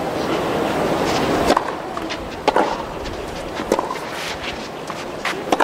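Crowd noise dying away at first, then a tennis rally: the ball struck by rackets with sharp pops about once a second.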